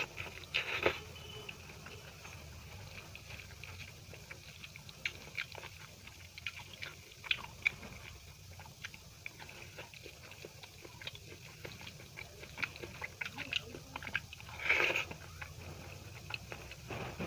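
A person chewing and eating soft food close to the microphone, with wet lip smacks and mouth clicks scattered irregularly throughout. Two louder, longer noisy bursts come about a second in and near the end.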